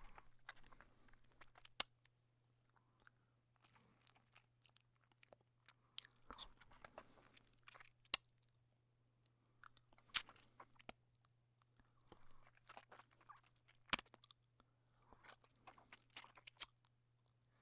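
A person sucking a thumb: spells of wet sucking and smacking, broken by a few sharp pops, over a faint steady hum.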